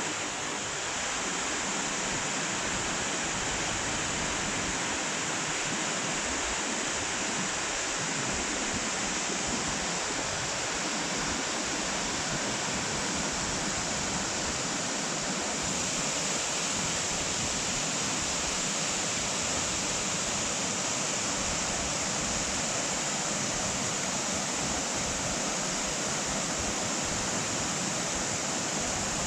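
Waterfall crashing into its pool: a loud, steady rush of falling water with no let-up.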